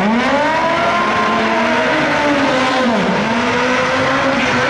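Drag-racing motorcycle engine at full throttle, launching off the line and running down the strip. Its pitch jumps up at the launch, holds high, and briefly dips and climbs again about three seconds in.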